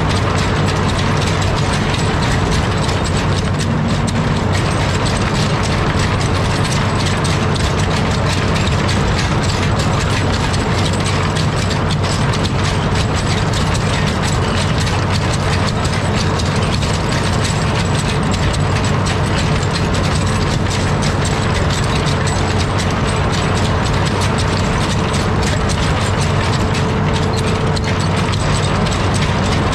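Amphibious excavator running steadily, its diesel engine humming low under a dense, even clatter from the pontoon track chains as the machine travels through water.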